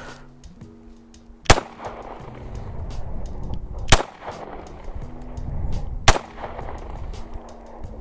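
Three pistol shots, about two and a half seconds apart. Background music plays underneath.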